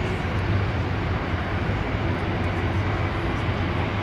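Large aircraft's engines running: a steady rush of engine noise with a low hum underneath.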